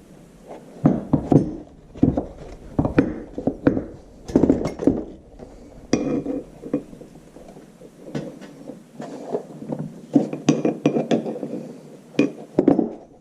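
A metal hand tool clinking, scraping and knocking irregularly against a tractor's rear axle bearing cap while the old felt washer is picked out of it.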